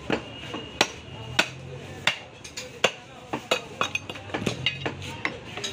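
A butcher's cleaver chopping a cow's leg on a wooden block: about a dozen sharp chops at uneven spacing, roughly two a second.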